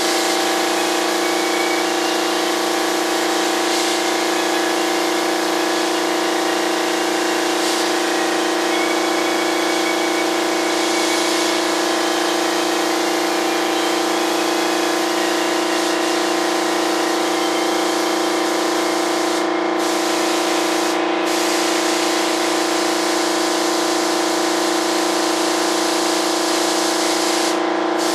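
Paint spray gun hissing as it sprays primer, over the steady hum of the machine feeding it air. The hiss cuts out briefly twice about two-thirds of the way through and once more near the end, as the trigger is let go.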